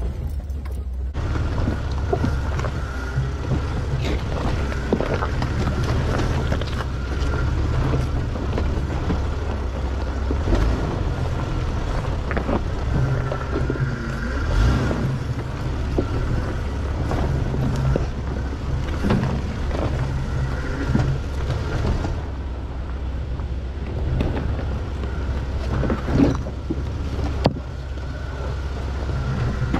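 Jeep crawling slowly over a rocky trail: a steady low engine rumble, with scattered knocks and crunches as the tyres roll over rock.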